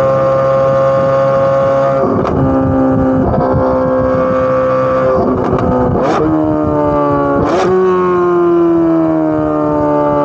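Corvette C8 Z06's naturally aspirated 5.5-litre flat-plane-crank V8 exhaust held at high revs, with short crackles and pops about two, six and seven and a half seconds in as the pitch steps, then the pitch falls slowly near the end.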